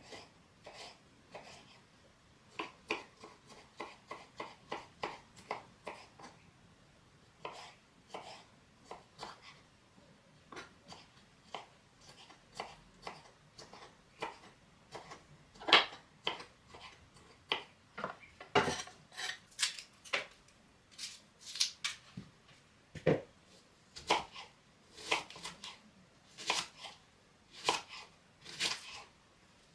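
Kitchen knife chopping food on a cutting board, dicing salad ingredients into small cubes: irregular sharp knocks, roughly one or two a second, louder from about halfway through.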